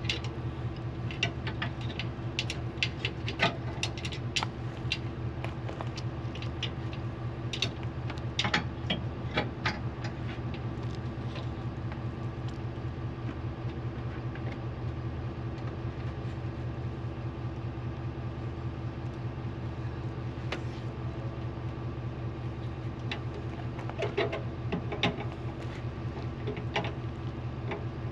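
A vehicle engine running steadily, with short clicks and rattles scattered over it and a cluster of them near the end.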